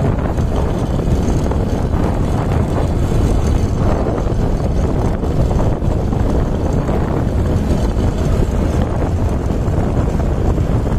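Steady rush of wind buffeting the microphone of a camera riding on a moving vehicle, with road noise beneath.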